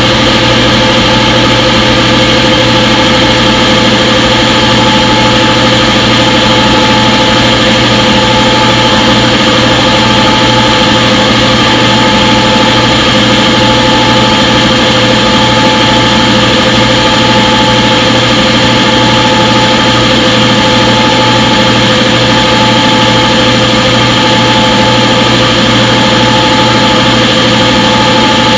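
Front-load washing machine running with a steady, even whir and hum, several constant tones held at one pitch with no change in speed.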